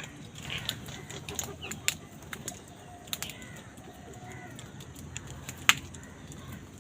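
Birds calling at a feeding spot, with a few sharp clicks or taps. The loudest click comes near the end.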